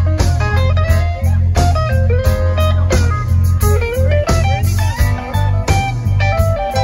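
Live rock band playing an instrumental passage: an electric guitar lead with bending, sliding notes over bass guitar and drums.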